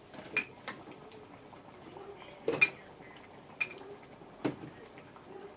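Kitchenware and plastic containers knocking and clinking as they are handled on a shelf: about five short sharp knocks, the loudest a double knock about two and a half seconds in.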